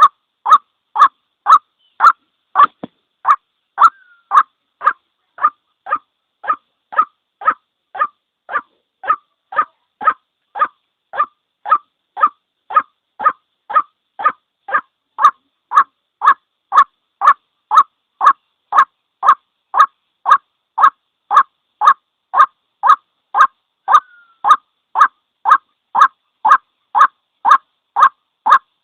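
White-breasted waterhen call: a single short, harsh note repeated evenly about twice a second, with silence between the notes. A looped lure call for drawing waterhens to a trap.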